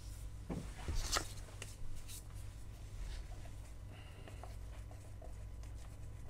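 Gloves rustling on, then a wooden stick stirring and scraping epoxy in a plastic measuring cup: small scrapes and clicks, the sharpest about a second in, over a low steady hum.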